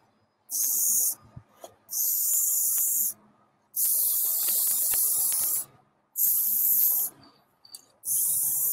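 Aerosol spray-paint can spraying in five bursts, each about one to two seconds long, with short pauses between them.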